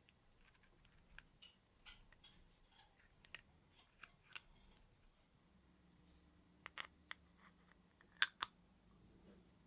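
Scattered small clicks and light taps of model-engine parts being handled and fitted together during assembly, with a closer pair of sharper clicks about eight seconds in.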